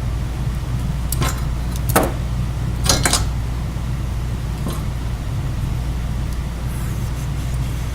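Hand wire stripper clicking and snapping as insulation is stripped off fuel-pump wires, a few sharp clicks about one, two and three seconds in and a fainter one later, over a steady low hum.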